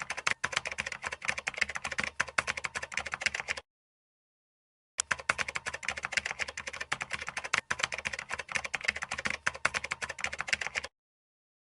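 Knife chopping fast on a cutting board, a rapid stream of sharp taps in two runs with a break of about a second and a half in the middle.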